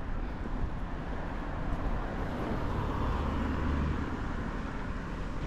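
Road traffic: a car passing, its noise growing louder around the middle and then fading.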